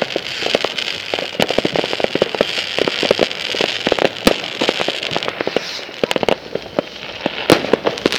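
Fireworks going off: a dense, irregular crackle of sharp pops, many a second, over a steady hiss.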